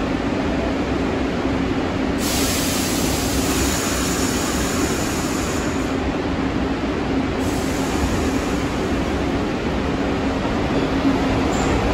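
New York City subway train running in the station: a steady rumble and hum, with a high hiss that comes in about two seconds in, drops out near six seconds and returns at about seven and a half.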